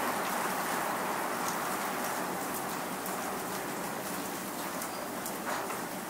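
Rain shower falling steadily: an even hiss with scattered sharp drop ticks.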